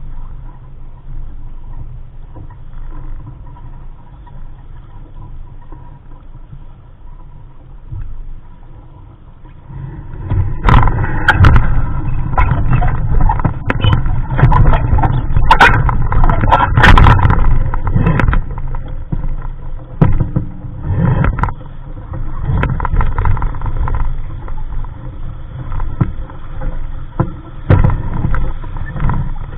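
Wind buffeting the microphone with water splashing and gurgling against the hull of a Capri Coronado 15 sailboat under sail, growing much louder about ten seconds in with irregular sharp splashes.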